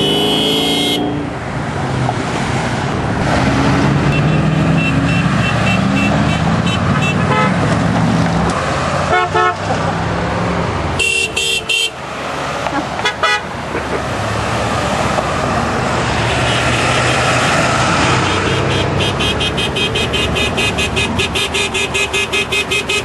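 Traffic passing on a busy street with car horns honking: a few short honks about halfway through, then a long run of quick repeated honks near the end.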